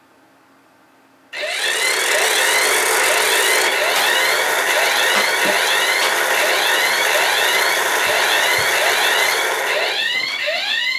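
Flying propeller alarm clock going off: its propeller motor starts a loud whir suddenly about a second and a half in, under a rapid series of rising electronic chirps from the alarm. Near the end the whir stops and the chirping alarm goes on alone.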